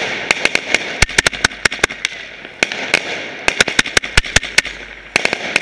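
Fireworks going off at close range: a rapid, irregular run of sharp bangs and crackles, several a second, over a steady hiss of spraying sparks.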